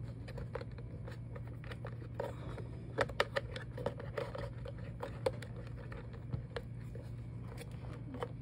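Light clicks, taps and scrapes as a turntable's motor drive circuit board and its wires are handled and pressed into the plastic chassis, thickest around the middle, over a steady low hum.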